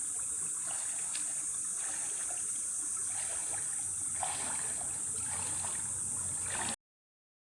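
Steady high-pitched outdoor hiss with faint scattered ticks and rustles, cutting off suddenly near the end.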